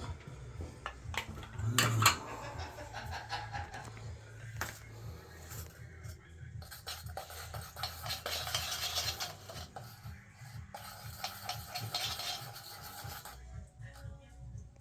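Metal parts and hand tools being handled during work on a shower valve's threaded fittings: rubbing and clinking, with a sharp knock about two seconds in and a longer scraping stretch from about seven to thirteen seconds.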